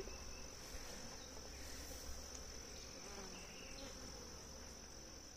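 Honeybees buzzing faintly around an opened hive, under a steady high-pitched insect trill.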